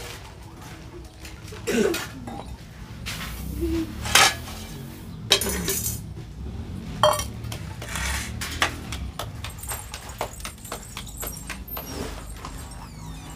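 Stainless steel dishes (plates, bowls and glasses) clinking and scraping as they are picked up and set down. There are several sharp clinks with a short ring, and a few longer scrapes.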